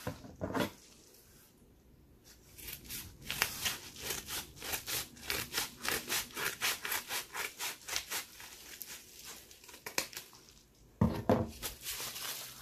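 Scissors cutting through the top edge of a padded paper mailer: a rapid, even run of snips, about four a second, with the paper crinkling.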